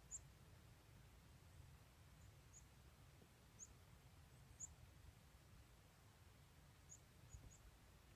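Faint, very short, high-pitched chirps from a bird, about seven of them scattered irregularly, over a faint low rumble.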